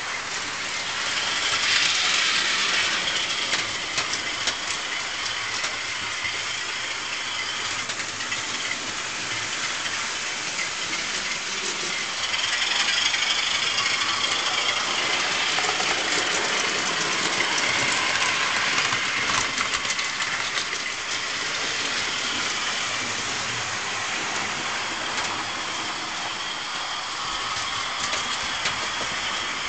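Model railway train running: a steady small-motor whirr with fine clicking of wheels over the track, swelling louder twice as the train passes close.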